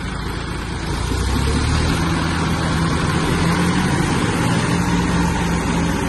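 Two John Deere tractor diesel engines working hard under full load, pulling against each other in a tug-of-war. The engine note rises about a second in and then holds steady.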